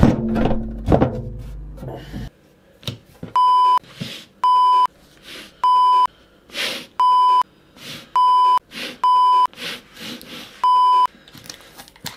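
An edited-in bleep tone, a steady pure beep at about 1 kHz, sounds seven times, each about half a second long with short gaps, over faint breathy voice sounds. Before the first beep comes about two seconds of muffled voice and handling noise.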